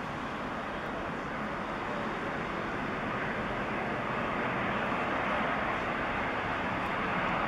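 Jet engines of a Boeing 767 airliner on final approach, a steady rushing noise that slowly grows louder as it nears, with a faint engine whine coming in near the end.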